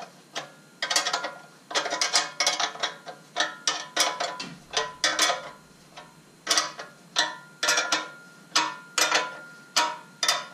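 Ratchet wrench clicking in a string of short back-and-forth strokes as it tightens the nuts of an exhaust pipe clamp.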